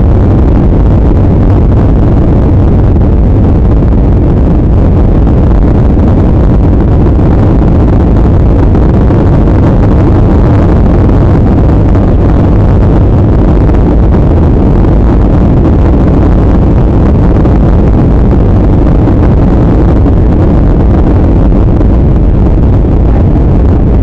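Steady, loud noise of a jet airliner heard from inside the cabin: engine and airflow noise, strongest in the low end, unchanging throughout.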